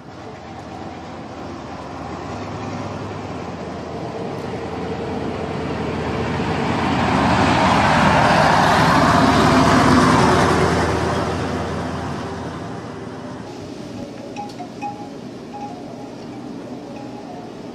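A heavy road vehicle driving past close by. Its engine and tyre noise builds over several seconds, is loudest about eight to ten seconds in, then fades away.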